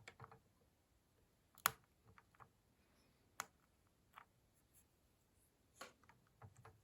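Near silence broken by a few scattered sharp clicks, the strongest just under two seconds in.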